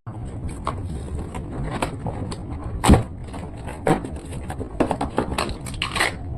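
Packaging handled and opened by hand: irregular crinkling, crackling and clicking, with one loud knock about three seconds in.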